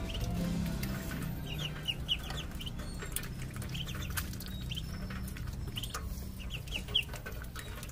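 Muscovy ducklings peeping in three short runs of quick, high peeps, over a steady low hum. There is a sharp tap near the end.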